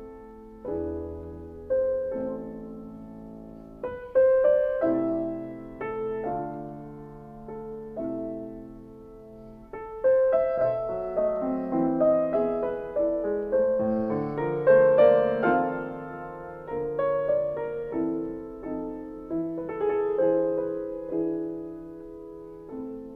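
Background piano music: a slow melody of notes that ring and fade, growing fuller and louder about ten seconds in.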